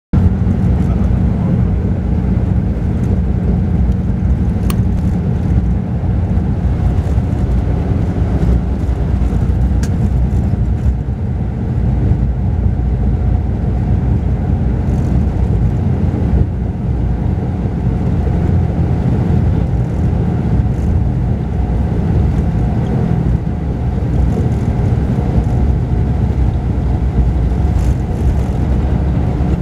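Mercedes-Benz O-500RSD coach's diesel engine and road noise heard inside the cabin of the double-decker's upper deck while it drives at a steady pace: a continuous low rumble and hum, with a couple of faint clicks.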